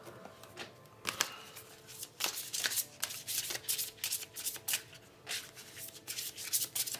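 A deck of tarot cards being shuffled by hand: a dense run of quick card flicks and slaps, starting about a second in.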